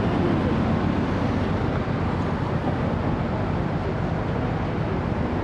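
Steady city traffic noise: a continuous low rumble of passing vehicles with no distinct events standing out.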